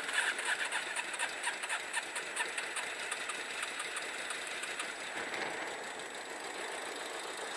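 Yamaha XJ600S Diversion's air-cooled inline-four engine idling steadily, running after a jump start from a spare battery pack.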